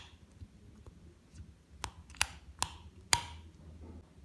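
Metal spoon clinking sharply against a ceramic bowl four times while soaked tamarind pulp is mashed and stirred in water.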